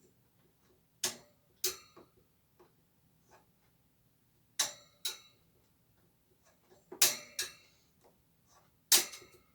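Sharp, short clicks and snaps, mostly in pairs a few seconds apart: scissors snipping through the plastic zip ties that hold an oscillating fan's grill on.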